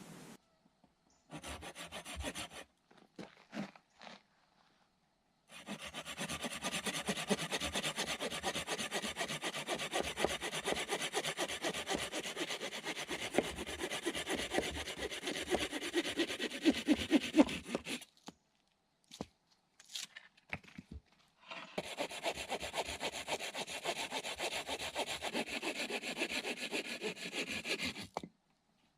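Hand saw cutting through a fresh cottonwood branch in fast, steady back-and-forth strokes. There is a short burst first, then two long runs of sawing separated by a pause.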